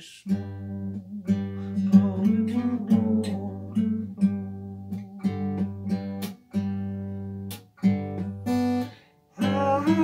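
Acoustic guitar strummed in ringing chords, an instrumental passage of a song. The playing breaks off briefly about nine seconds in, then picks up again.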